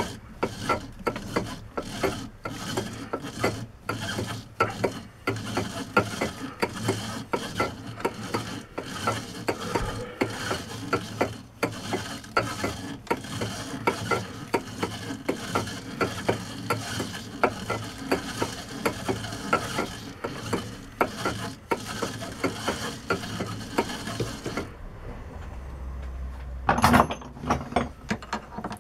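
A cast hand-wheel hub being tapped by hand on a lathe, the chuck turned in short strokes against the tap: a regular mechanical clicking about twice a second. It stops about 25 seconds in, and a single sharp knock follows near the end.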